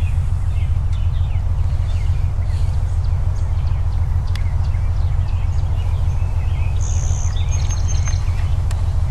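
Birds chirping in short, scattered calls over a steady low rumble, which is the loudest sound. A brighter, higher call comes about seven seconds in.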